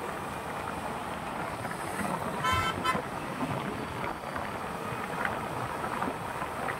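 Steady road traffic noise, with a vehicle horn honking once, briefly, about two and a half seconds in.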